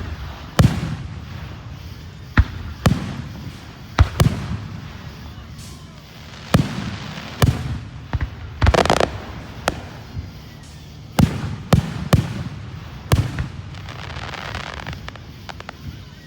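Fireworks exploding: a string of sharp bangs at irregular intervals, some echoing, with a longer crackling stretch about nine seconds in.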